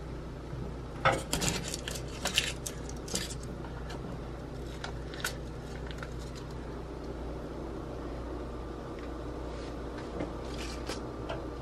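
Light rustles and sharp clicks of parchment paper and the baking sheet being handled as dough strips are folded over a filling. They are heaviest in the first few seconds and come again briefly near the end, over a steady low hum.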